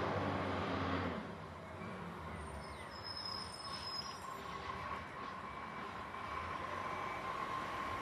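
Garbage truck engine running as the truck pulls up to the kerbside bins. Its low note drops about a second in as it slows to a stop, and it then idles with a steady high whine.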